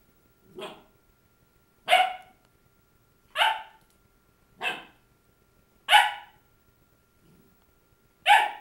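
Labradoodle puppy barking at its own reflection: six single barks, roughly one every second and a half, the first one softer.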